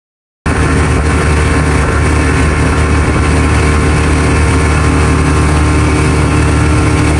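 Motorboat engine running at a steady speed, with a constant rush of wind and water. The sound cuts in suddenly about half a second in.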